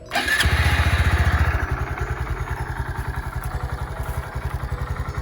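2020 Honda Grom's 125 cc single-cylinder engine started on the electric starter. It catches almost at once and runs a fast idle, then after about a second and a half settles into a steady, even idle.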